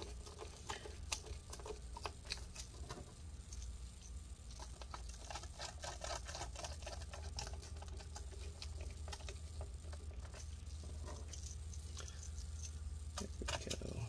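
Small screws being driven into a laptop's plastic bottom case with a PH0 precision screwdriver: a faint, irregular run of light clicks and scratchy ticks.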